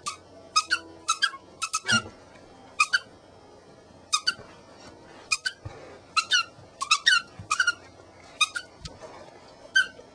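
Squeaker inside a dog toy squeaking again and again as a Jack Russell terrier chomps on it: short, high squeaks in irregular clusters of two or three, with brief pauses between.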